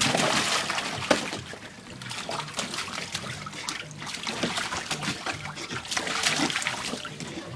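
German Shepherd splashing about in the water of a plastic kiddie pool: irregular splashes and sloshing throughout.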